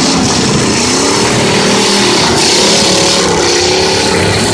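Demolition derby car engines revving loudly, their pitch rising and falling as several cars run at once.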